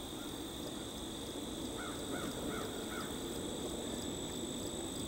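Insects, crickets among them, trilling steadily in two high, unbroken tones over a faint regular ticking, with a bird calling four short notes about two seconds in. A low, even background rumble sits underneath.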